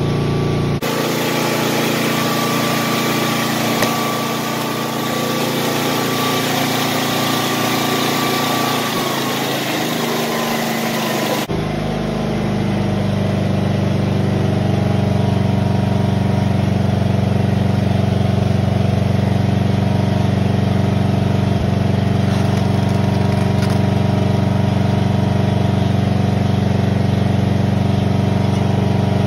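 Small engine running at a steady speed. For about the first eleven seconds a broad hiss lies over it, then the sound cuts suddenly to the plain, steady engine hum.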